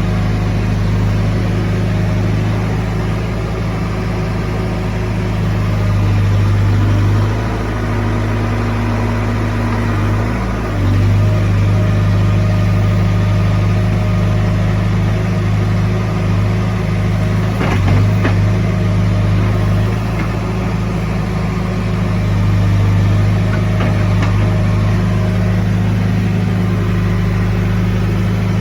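Heavy-equipment diesel engine running steadily. Its note drops and changes briefly about seven to eleven seconds in, then picks up again louder.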